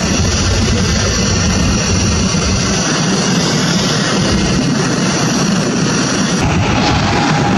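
Jet engines of a twin-engine widebody airliner climbing out after takeoff: a loud, steady roar of engine noise.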